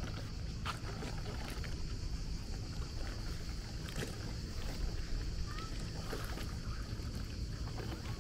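Steady outdoor background noise: a low rumble under a continuous high-pitched hiss, with scattered light ticks.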